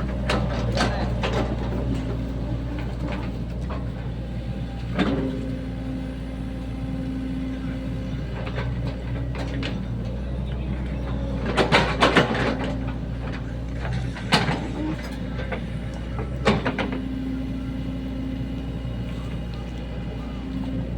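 Sany SY75 mini excavator's diesel engine running steadily under working load while digging a ditch, with several sharp clanks and knocks from the working equipment, a cluster of them about halfway through.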